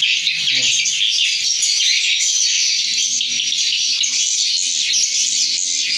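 Swiftlets twittering: a dense, steady chatter of high chirps with no break.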